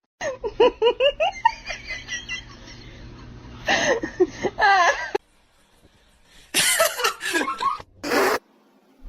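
People laughing in three separate bouts of quick, repeated ha-ha syllables.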